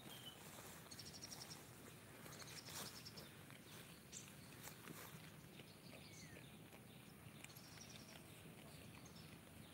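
Very quiet grazing: goats tearing and chewing grass and leaves, with faint scattered clicks and rustles. A few brief high chirping trills come and go.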